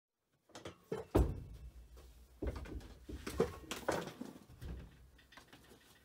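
A series of irregular knocks and thumps with some rustling, loudest about a second in and thinning out toward the end.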